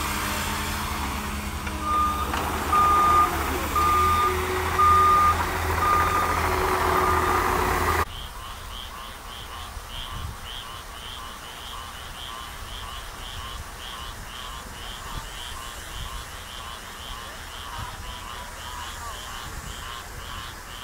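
A vehicle's reversing alarm beeps about once a second, six times, over an idling engine. About eight seconds in it cuts off sharply to a quieter night chorus of frogs and insects calling in quick, even pulses.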